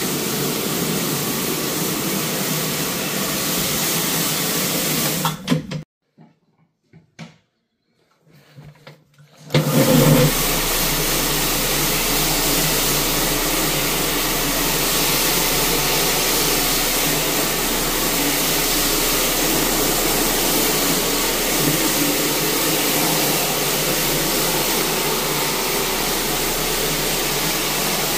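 A 175 rpm rotary floor machine running steadily, its pad scrubbing carpet in very-low-moisture encapsulation cleaning. About six seconds in the sound drops out for roughly three and a half seconds, then comes back with a brief loud burst before settling to the same steady run.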